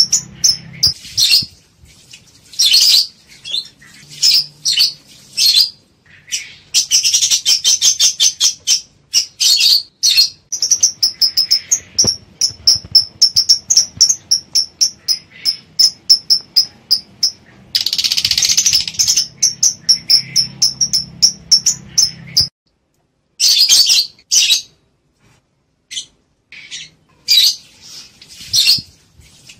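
Lovebirds calling in fast runs of short, shrill chirps and chatter, with a brief pause about three-quarters of the way through. These are the calls of lovebirds in breeding mood, offered to stir paired birds to mate.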